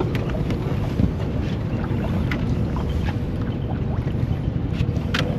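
Wind rumbling on the microphone over an anchored boat, with a few light clicks and knocks, one about a second in and one near the end.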